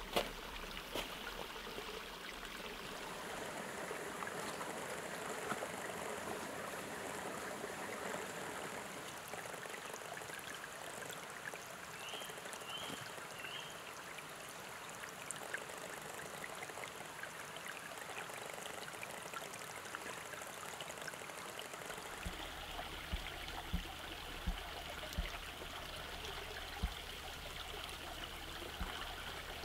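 Small woodland stream trickling steadily over mossy rocks. Three short bird chirps come about twelve seconds in, and a few sharp clicks sound near the end.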